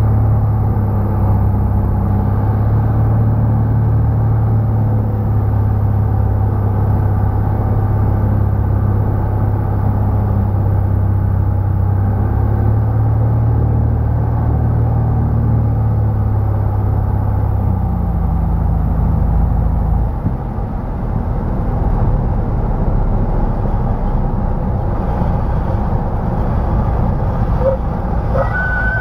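Light aircraft's piston engine and propeller droning in the cockpit on final approach. The engine note drops about two-thirds of the way through as power comes back for landing, and a brief high tone sounds near the end as the plane comes down over the runway.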